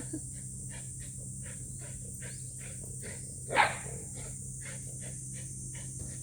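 Shiba Inu dog panting in a quick, even rhythm of about three breaths a second, with one louder huff about three and a half seconds in, over a steady high-pitched drone.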